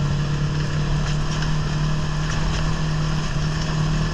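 ATV engine running steadily while under way, a constant low drone at an even pitch.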